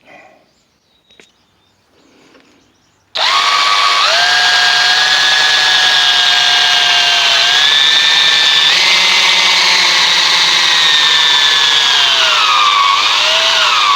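Cordless drill boring through an oak chair leg into its support block with a center-point wood bit. It starts suddenly about three seconds in and runs with a steady high whine, and its pitch sags and wavers near the end as the battery runs down.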